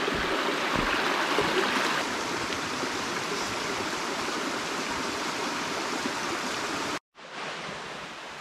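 Shallow mountain stream running over rocks across a trail, a steady rushing of water. It cuts off abruptly about seven seconds in, and a quieter steady outdoor background follows.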